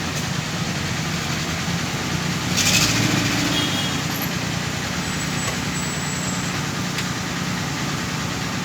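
Heavy machinery diesel engines running steadily at a low idle-like hum, with a brief hiss about two and a half seconds in.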